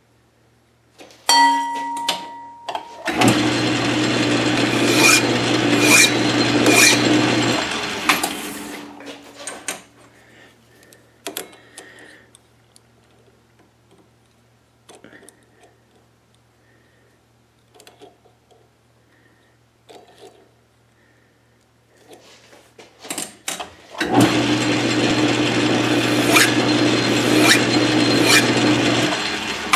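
South Bend 13-inch lathe running twice for about five seconds each, a steady motor hum under a rough scraping noise, with a flat file held against the spinning tailstock screw. Between the runs, light clicks of a measuring tool being handled on the work.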